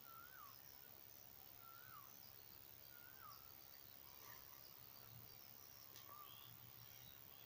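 Faint birdsong: one bird repeats a short whistled note that rises and then falls, about once every second and a half, with scattered higher chirps from other birds.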